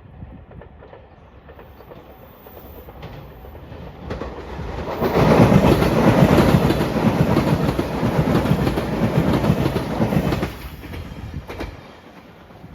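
JR Shikoku 8000 series electric express train passing at speed, its wheels clattering over the rail joints. The sound builds about four seconds in, is loudest for about five seconds, then falls away suddenly as the train clears.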